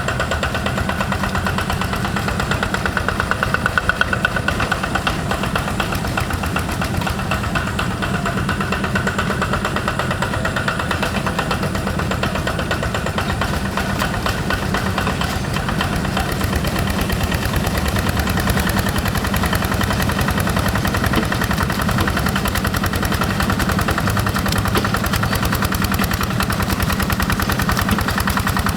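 Single-cylinder Yanmar diesel engine of a Quick G1000 hand tractor running steadily, with a fast, even chugging beat.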